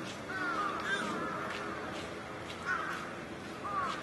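Crows cawing: several short calls spread through the few seconds, over a steady background hum of ambient noise.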